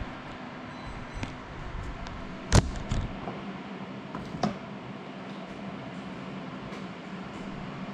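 Small FPV drone (GEPRC Cinelog 35 cinewhoop) crashing: one sharp knock about two and a half seconds in, then a few lighter knocks as it comes to rest, over a steady low hum.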